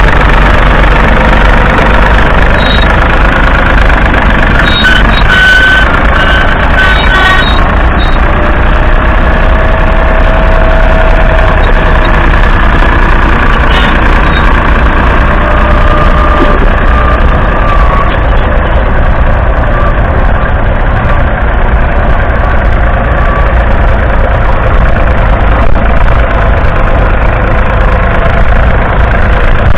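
David Brown 770 Selectamatic's 2.4-litre three-cylinder diesel engine running steadily as the tractor drives with a mounted plough.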